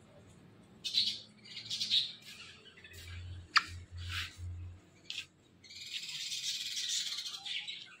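Rose-ringed (ringneck) parakeets giving short, harsh calls several times, then one longer harsh call near the end. There is a single sharp click about three and a half seconds in.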